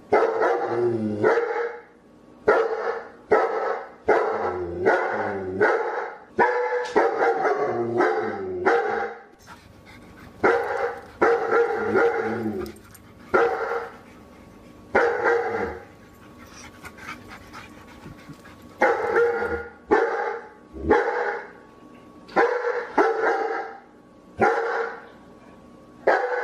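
A dog barking repeatedly in quick runs of barks, broken by pauses of a second or more; the longest pause falls about two-thirds of the way through.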